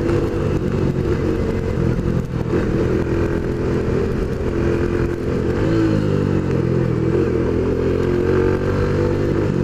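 Dafra Zig 100cc scooter engine running while riding along, heard from the handlebars. Its note dips and then rises again a little past halfway, over a steady hiss of road and wind noise.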